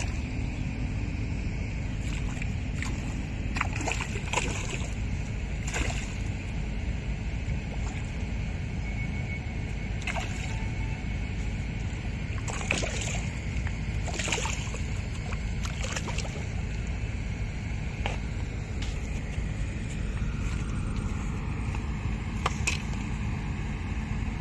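Water splashing and sloshing in irregular strokes every second or few seconds over a steady low rumble.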